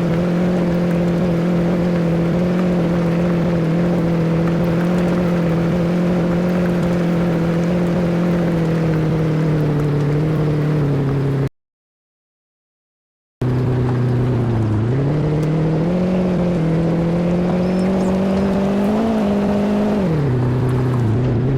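A motor engine running at a steady pitch, broken partway through by about two seconds of dead silence. It then runs again with its pitch rising and falling, and drops near the end.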